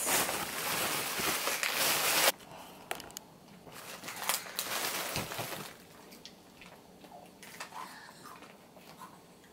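Plastic packaging crinkling loudly for about two seconds and stopping abruptly. Then quieter rustling and crinkles as a small bag of Gingerman Minis cookies is opened, fading to a few faint clicks.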